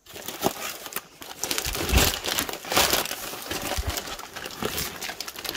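Crushed cardboard shipping box and its clear plastic packing tape crinkling and crackling as hands rummage in the torn box, with louder crackles about two and three seconds in.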